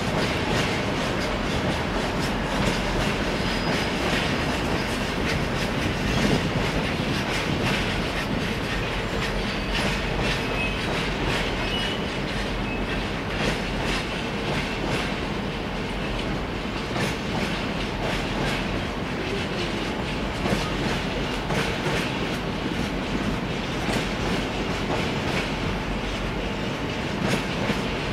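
Bogie fuel tank wagons of a long freight train rolling slowly past, their wheels clacking over rail joints in a steady, uneven run of clicks over a continuous rumble.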